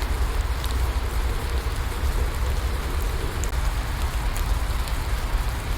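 Steady rain with a low rumble under it and scattered drop ticks, used as a continuous rain-sound background track.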